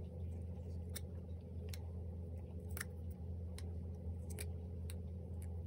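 Small paper photo cards being handled by hand, making a scatter of light, sharp clicks and ticks as they are fingered and shuffled. A steady low hum lies under them.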